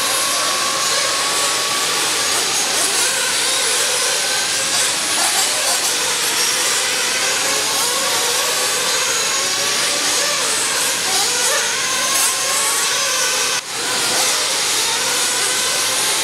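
Several radio-controlled off-road racing cars running on a dirt track together, their motors whining and rising and falling in pitch as they accelerate and brake, over a steady hiss. The sound briefly drops out near the end.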